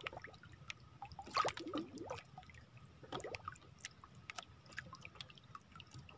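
Faint water lapping and dripping beside a small outrigger boat as a wet fishing handline is pulled in hand over hand, with scattered small clicks and splashes.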